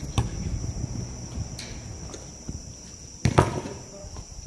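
A basketball thudding on an outdoor court a few times, with the loudest hit about three seconds in.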